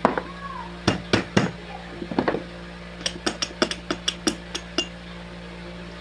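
Metal knocks and clinks from handwork on a starter motor's bendix drive. A few sharp knocks come in the first two seconds, then a quick run of about eight lighter taps, over a steady low hum.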